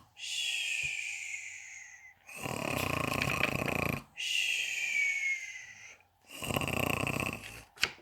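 A person acting out cartoon snoring: a rasping snore on each in-breath followed by a falling whistle on each out-breath, the cycle repeating about every four seconds. A short sharp click comes just before the end.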